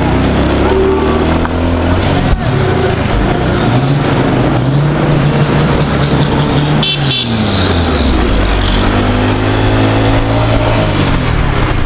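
Dayun motorcycle engine running under way, its pitch dipping about seven seconds in and climbing again as it changes speed, with a short horn toot at about the same moment.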